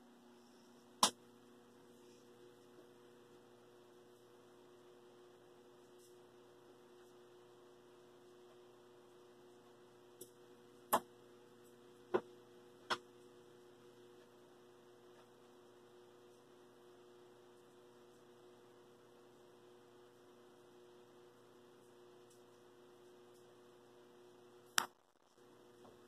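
A steady low electrical hum with several sharp clicks: one about a second in, four in quick succession around ten to thirteen seconds in, and one near the end, after which the hum briefly drops out.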